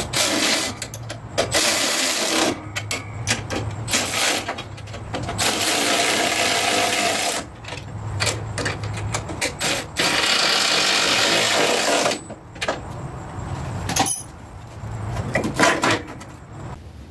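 Cordless power driver running bolts into a steel mower frame in a series of bursts a second or two long, with short pauses between. The longest and loudest burst comes about two thirds of the way in.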